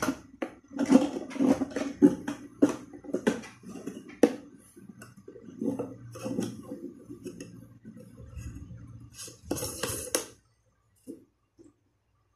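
Hollow plastic knocks, clicks and clatter from a white plastic toilet cistern and its fittings being handled and turned over, with a louder scraping burst about nine and a half seconds in before the sound drops away.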